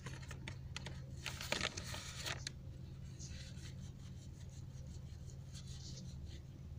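A metal fork being wiped clean by hand: soft rubbing and scratching with small clicks, busiest in the first couple of seconds, over a steady low hum.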